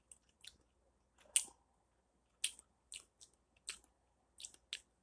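Lip smacks and small wet mouth clicks, scattered and irregular, from a person tasting a sip of wine.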